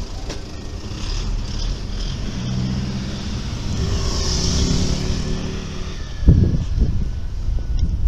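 A van passing close by on the street, its engine running over the low road rumble, with a sharp low thump about six seconds in.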